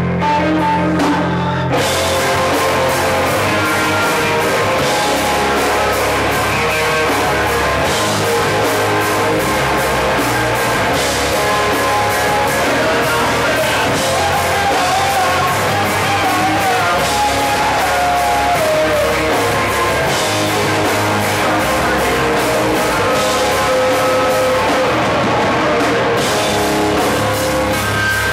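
Live rock band playing loudly, heard from the audience: distorted electric guitars and bass, with the drum kit coming in about two seconds in, and a voice singing over the band in the middle stretch.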